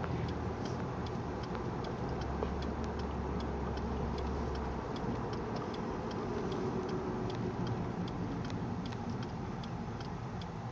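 Steady engine and road noise inside a moving car's cabin, with a light, regular ticking running through it.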